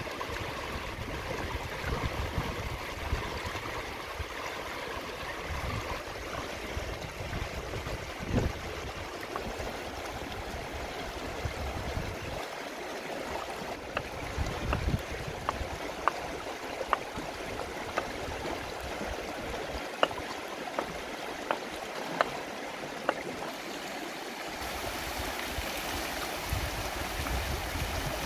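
River water running over rocks. In the middle comes a run of about a dozen sharp knocks, roughly one a second: a cleaver chopping chicken liver on a wooden chopping block.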